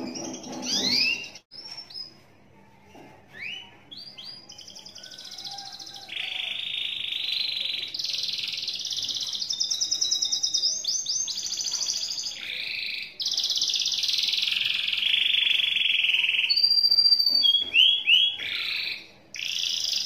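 Domestic canary singing a long, nearly unbroken 'ngekek' song: a few rising whistles, then from about six seconds in a continuous run of fast trills and long rolling buzzes, with a high whistle and more quick rising notes near the end.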